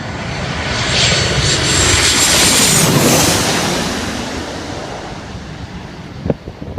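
A landing Boeing 737-800's CFM56 jet engines passing close by: a loud jet roar that swells and then fades, with a high fan whine that drops in pitch as the aircraft goes past.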